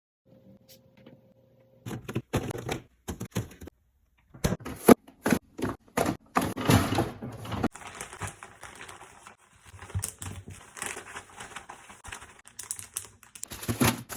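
Kitchen meal-prep sounds: after a quiet first two seconds, a run of sharp taps, clicks and knocks with rustling between them.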